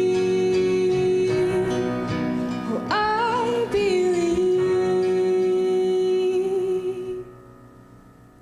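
The end of a song sung in a church service, with instrumental accompaniment. The singing holds a long final note and the music fades out about seven seconds in, leaving faint room tone.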